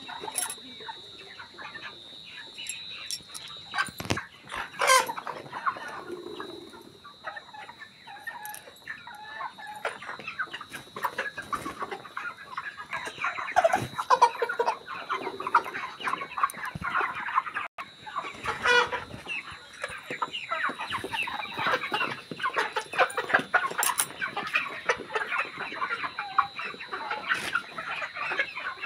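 A large flock of 43-day-old broiler chickens clucking and calling over one another without pause, with a steady high tone underneath.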